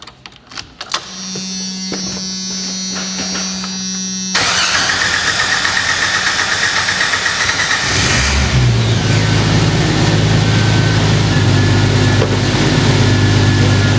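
1991 Jeep Wrangler YJ being started: the ignition key clicks and a steady buzz sounds for about three seconds. The starter then cranks for about four seconds before the engine catches and settles into running. The long crank is the sign of fuel draining back to the tank through a failed check valve in the in-tank fuel pump.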